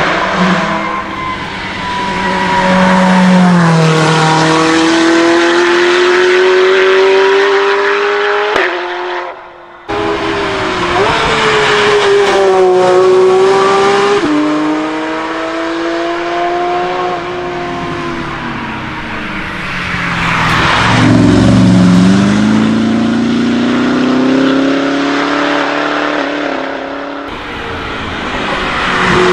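Supercars accelerating hard one after another on a wet track, among them a Porsche 911 GT3 RS and a McLaren P1. Each engine climbs in pitch and steps down at the upshifts, over the hiss of tyres on the wet road. The sound drops out briefly about nine seconds in, and then another car takes over.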